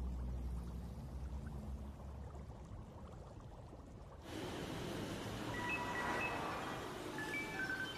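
Aquarium water bubbling over a low steady pump hum. About four seconds in it switches abruptly to a louder, brighter ambient hiss with a few short, faint high tones at different pitches.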